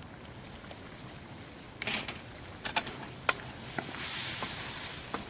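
Kitchen handling sounds while a spice is being added: a few sharp taps and clicks, like a spoon knocking on a container, and a soft hiss for about a second near the end.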